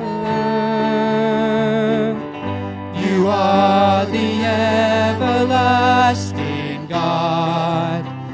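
Live worship band playing an instrumental passage between lines of a song, with sustained notes and a wavering melody line over a bass line that changes chord every second or two.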